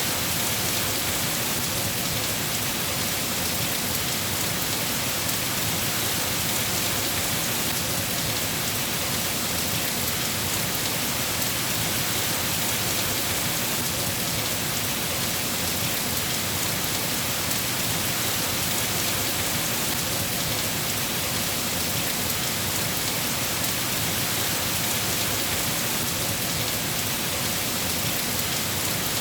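Steady heavy rain falling on surfaces, an even hiss that holds without change.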